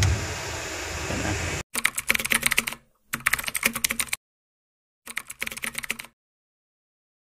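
Steady hum inside a truck cab that cuts off suddenly, then a computer keyboard typing sound effect in three quick bursts of clicking.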